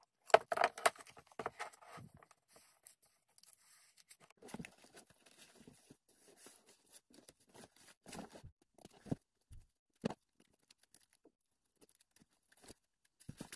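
Masking tape pulled off its roll with a tearing rasp and pressed along a paper book's spine, loudest in the first two seconds, followed by scattered soft rustles and taps of hands handling the book.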